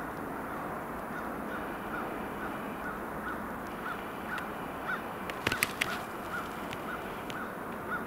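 Pileated woodpecker chiselling into a dead tree: a quick cluster of sharp knocks about five and a half seconds in, over a steady background hiss.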